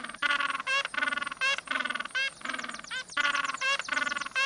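Penguin calling: a rapid, unbroken series of harsh, buzzy notes that alternate with short sweeping ones, a few to the second.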